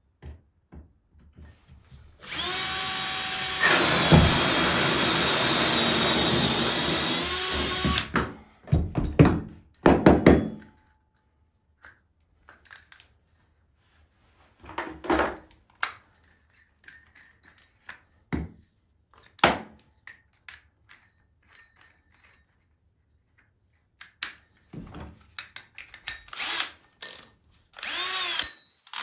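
Power drill boring a starter hole through half-inch cement backer board: one steady run of about six seconds, then a couple of short bursts, followed by scattered clicks and a few brief squeezes of the trigger.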